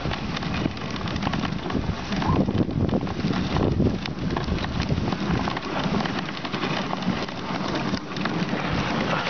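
Dog sled running over a packed snow trail behind its dog team: a steady, dense crackle of the runners and the dogs' paws on snow.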